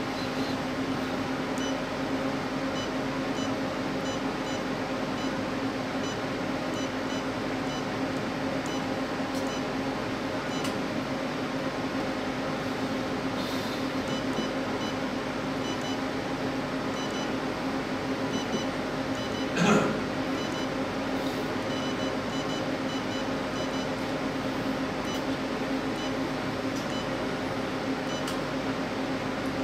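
Nubway CL218 portable cryolipolysis machine running after being switched on, giving a steady mechanical hum with a low tone. A brief louder knock comes about two-thirds of the way through.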